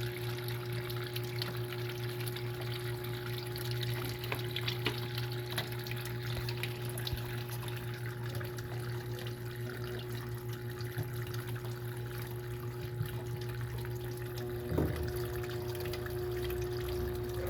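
Electrolux Turbo Economia washing machine filling: water pouring into the drum over a steady hum. About fifteen seconds in there is a knock, and further steady tones join the hum.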